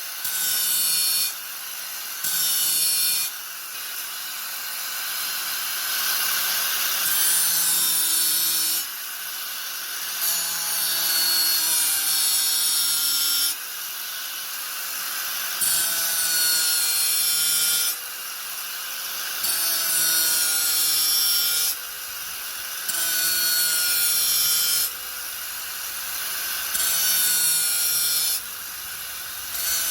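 Angle grinder running with a steady whine, pressed into the work again and again: every two to three seconds a loud grinding hiss of one to three seconds rises over the motor, then drops back to the free-running whine.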